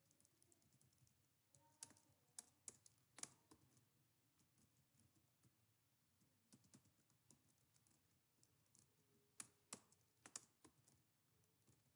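Faint, scattered clicks of computer keyboard keys, a few at a time in irregular clusters, during spreadsheet data entry.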